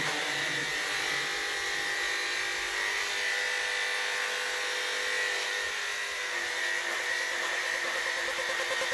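Electric dog-grooming clipper buzzing steadily as it shears a schnauzer's wiry coat.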